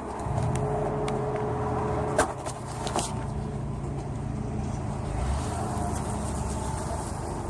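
Car engine running close by, a steady low hum, with a sharp knock about two seconds in.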